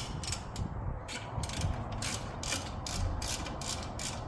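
Ratchet wrench clicking in repeated short strokes, about three a second, as it loosens a brake caliper bolt.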